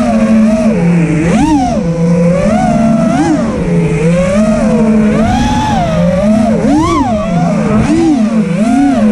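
FPV freestyle quadcopter's brushless motors and propellers whining, the pitch swinging up and down quickly and continually with the throttle.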